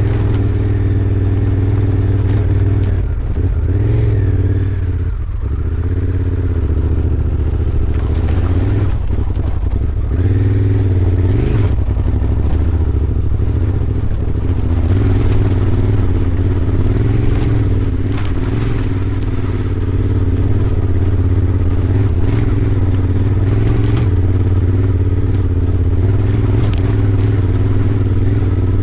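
Honda Africa Twin 1100's parallel-twin engine running steadily under light throttle while riding off-road, with occasional short clattering knocks.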